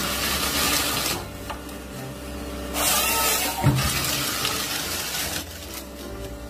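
Tracked forestry harvester processing a felled log: a steady low engine hum under two long spells of loud rushing, hissing noise from the harvester head at work, the second starting about three seconds in.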